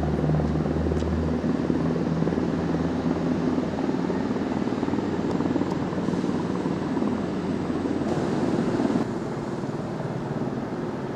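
Underfloor diesel engines of a CrossCountry Voyager diesel multiple unit running at the platform: a low steady hum for the first second or so, then an even rumbling noise. The sound drops to a quieter, more distant train rumble about nine seconds in.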